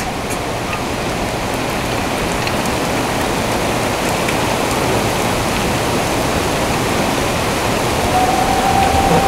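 Rain falling steadily, an even hiss that grows a little louder as it goes on. Near the end a brief steady tone sounds over it.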